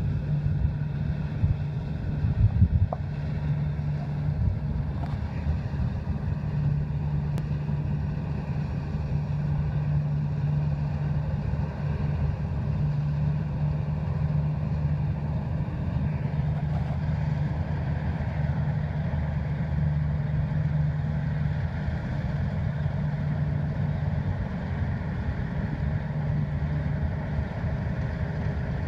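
Claas combine harvester running steadily as it cuts a standing cereal crop, its engine a constant low drone. There are a few brief louder thumps about two seconds in.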